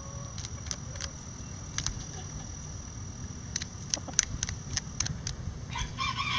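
Bantam roosters pecking at a hanging red cabbage, with short sharp pecking clicks scattered throughout. Near the end a rooster starts to crow.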